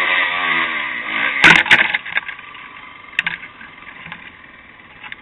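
Dirt bike engine revving unevenly, its pitch rising and falling, with two loud knocks, one at the start and one about a second and a half in. The engine dies away about two seconds in, leaving a few small clicks.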